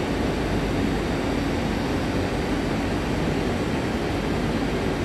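RER A double-deck electric train pulling away into the tunnel, a steady rumble of wheels and traction motors echoing in the underground station.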